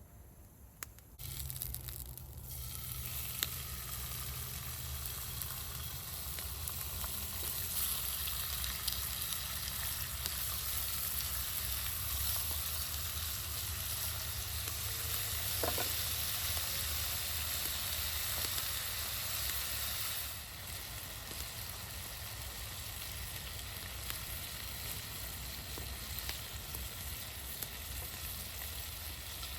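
Turkey bacon sizzling in a frying pan. The sizzle starts suddenly about a second in as the food meets the hot pan, runs steadily, and eases a little about two-thirds of the way through.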